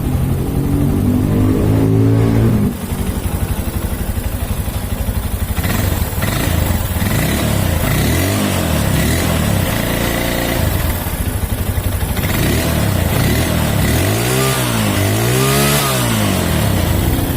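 Motorcycle engine running at idle and blipped three times, the revs rising and falling back each time, once about halfway through and twice in quick succession near the end.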